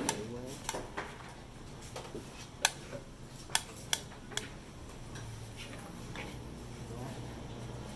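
Stainless-steel buffet serving tongs clicking against steel food trays and a plate, four sharp clicks in quick succession near the middle, over a steady low hum.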